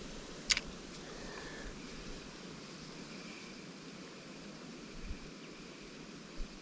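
Steady rushing outdoor ambience beside a shallow river, with a single sharp click about half a second in.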